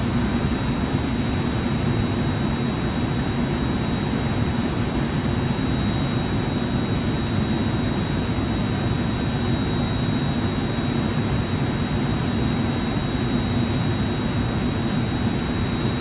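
Steady low rumble of a jet airplane in the distance, holding an even level, with a thin steady high whine above it.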